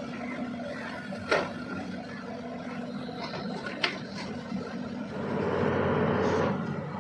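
Caterpillar 320DL excavator's diesel engine running steadily, with two sharp knocks of the working gear, one about a second in and one near four seconds. A louder rushing noise swells in for about a second and a half near the end.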